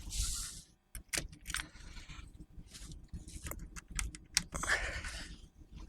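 Small metal hardware and tools being handled: irregular clicks and clinks with bursts of rustling.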